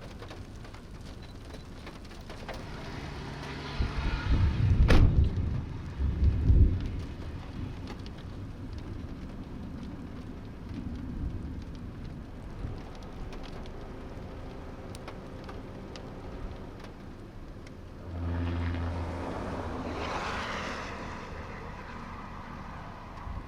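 Outdoor thunderstorm sound: a steady rain-like hiss, broken by heavy low rumbles with a sharp crack about five seconds in. A vehicle engine passes about eighteen seconds in.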